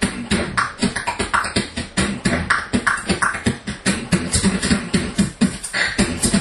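Beatboxing into a handheld microphone: a fast, unbroken rhythm of vocal kick and snare hits.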